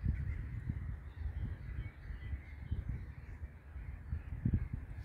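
Wind buffeting the microphone in uneven low gusts, with faint distant bird calls above it.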